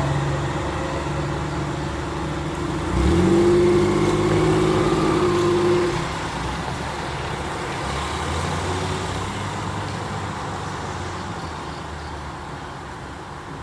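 Road traffic at a level crossing: a motor vehicle pulls away and accelerates over the crossing about three seconds in, loudest for about three seconds with a steady engine tone. Then the traffic noise fades away.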